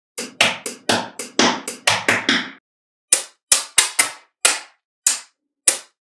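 Small neodymium magnetic balls snapping and clacking together. A quick run of about ten sharp clicks, then single clicks about every half second.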